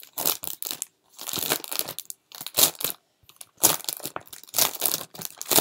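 Clear plastic bag crinkling as it is handled and pulled open, in a series of irregular rustles with short pauses between them.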